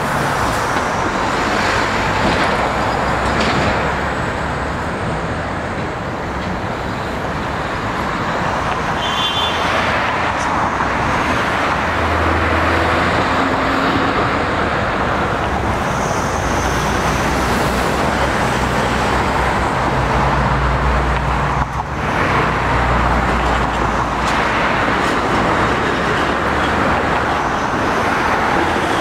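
Steady rumble and running noise of street vehicles, with a brief high-pitched squeal about nine seconds in.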